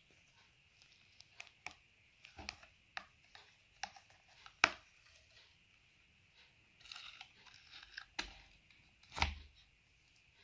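Scattered clicks and taps of plastic and metal, with some rustling, as gloved hands thread tape through a hand tying machine's metal head and handle its green plastic tape reel. The loudest clicks come about halfway through and near the end.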